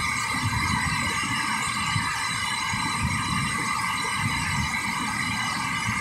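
Heavy tropical downpour: rain pouring down in a steady, dense hiss with no letup.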